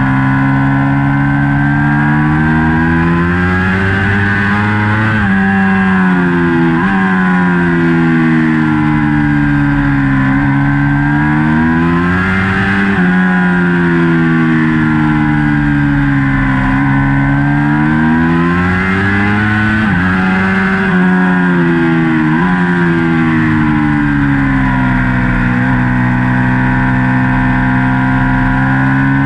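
Ducati Panigale V4 racing motorcycle's V4 engine heard onboard at racing speed, its revs climbing and falling several times as the bike accelerates out of corners and brakes into them, with sudden steps in pitch at the gear changes.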